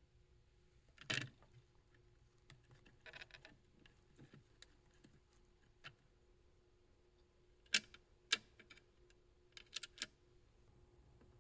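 Scattered sharp clicks and light taps at an irregular pace, with a louder click about a second in and a quick group of them near the end, over a faint steady hum.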